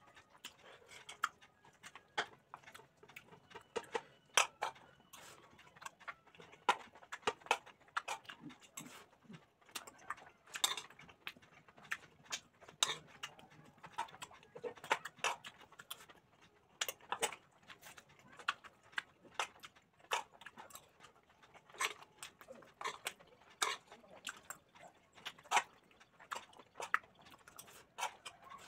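Close-up eating sounds: chewing and lip-smacking mixed with cutlery clinking and scraping on plates, heard as many short, sharp clicks at an irregular pace.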